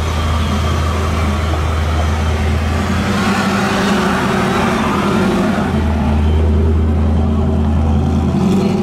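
C5 Corvette's small-block V8 running steadily at low speed through its quad exhaust as the car creeps past close by.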